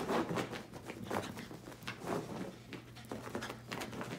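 A Boston Terrier scrambling over carpet after a flirt-pole lure: a run of short scuffling sounds, about three a second, over a steady low hum.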